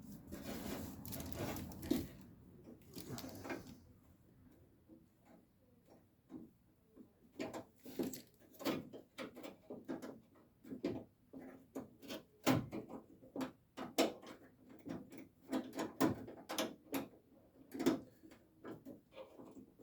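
Irregular clicks, knocks and scraping from hands working inside a 1968 Camaro's door shell, fishing for the latch clasp to hook the inner door opener rod into it. There is a stretch of scraping and rustling at first, then a run of sharp metallic clicks and knocks from the second half on.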